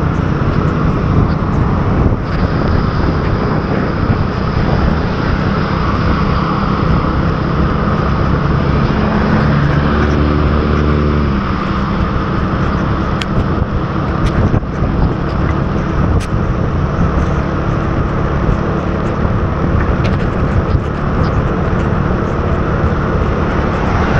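Motorbike riding at speed on a rain-soaked road: a steady rush of wind and road noise with the engine running underneath. About ten seconds in, a pitched engine drone stands out for a second or so.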